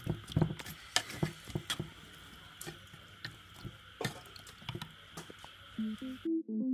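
Chopsticks stirring raw frog pieces in a chili marinade in a metal pot: wet squishing with irregular clicks of the chopsticks against the pot. Electronic keyboard music comes in near the end.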